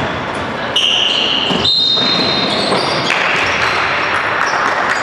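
Basketball game play on an indoor court: the ball bouncing and shoes squeaking, with several short high squeaks.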